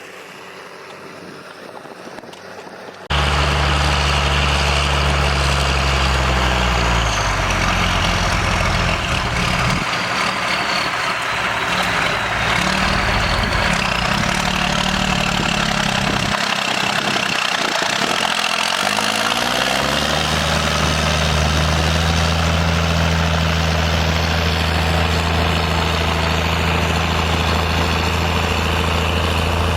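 Diesel tractor engine working as it pulls a plough. Its note shifts and falls away around the middle, then rises back and holds steady. The first few seconds are quieter until an abrupt jump to the loud engine.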